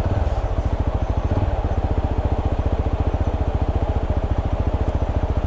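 TVS Apache RTR 160 4V motorcycle's single-cylinder engine idling with a steady, fast, even beat.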